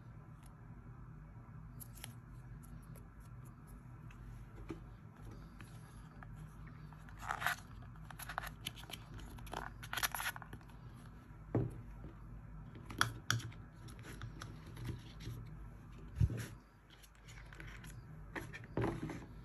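Product packaging being handled and torn open: scattered short scrapes, crinkles and clicks, a few of them louder, over a steady low hum.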